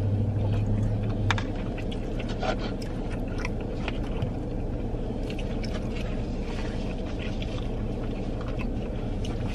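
Eating sounds inside a car: chewing, and forks clicking and scraping against plastic takeout containers, in scattered short ticks over a steady low hum.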